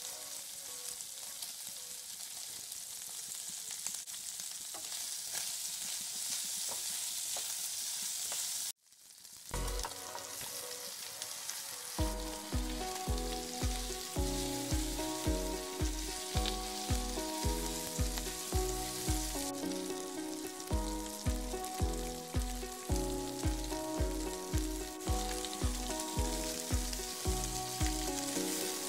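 Pork and potato slices sizzling in oil in a frying pan as they are stir-fried with a spatula. After a brief cut about nine seconds in, the sizzling goes on and background electronic music with a steady beat comes in over it.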